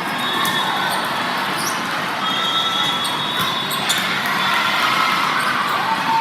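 Indoor gym sports game, likely volleyball: scattered sharp ball and shoe impacts and short sneaker squeaks over steady crowd chatter in a large hall.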